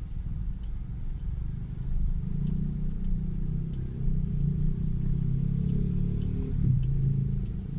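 Car engine and road rumble heard from inside the cabin while driving slowly, a low steady hum that grows stronger about two seconds in and shifts in pitch near the end.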